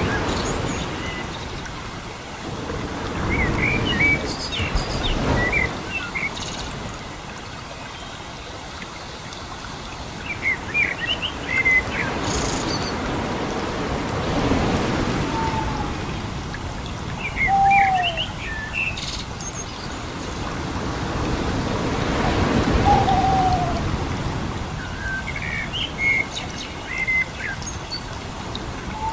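Nature-sounds background track: birds chirping in short clusters every several seconds over a steady rushing water noise that swells and fades.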